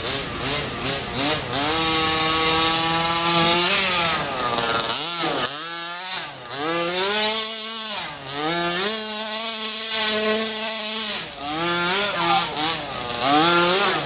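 The 29cc two-stroke gas engine of a 1/5-scale HPI Baja 5T clone RC truck, revving up and down with a raspy exhaust. The pitch climbs steadily, drops sharply twice off the throttle, holds high for a few seconds, then rises and falls in several quick blips near the end.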